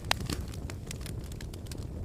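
Wood fire burning in a fireplace: a steady low rumble of the flames with scattered sharp crackles, one loud pop just after the start.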